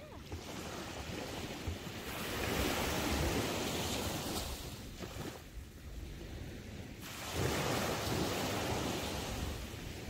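Small ocean waves breaking and washing up a sandy beach, the rush swelling twice, about two seconds in and again about seven seconds in, with wind rumbling on the microphone underneath.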